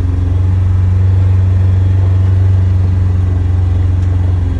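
Polaris Ranger side-by-side's engine running at a steady pace while driving, a constant low drone heard from the driver's seat.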